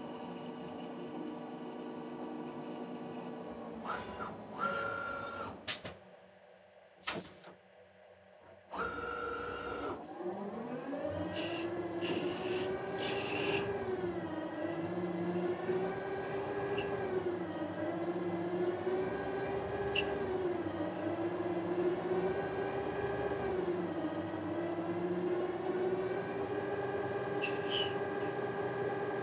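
TRAK 1845RX CNC lathe running a turning program: a steady machine whine from the spindle and drives. It breaks off and goes quiet for a few seconds about five seconds in. Then it comes back as a rising whine as the spindle speeds up, and its pitch dips and rises again and again while the tool cuts the part.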